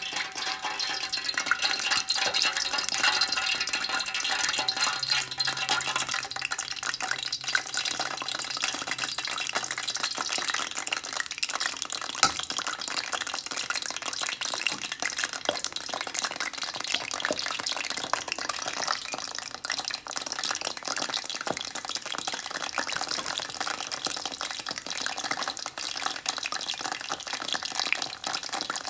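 Tuna lumpia (egg rolls) deep-frying in hot vegetable oil: a steady sizzle full of tiny crackles. A single brief knock about twelve seconds in.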